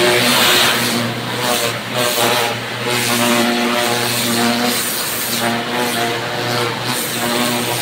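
Pressure washer running, its pump motor humming and dropping out and back in every second or so, with the hiss of the water jet hitting the pavement, strongest at the start.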